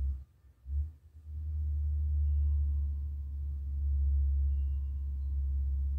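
A steady low hum that cuts out briefly just after the start and returns about a second in, with faint thin tones above it.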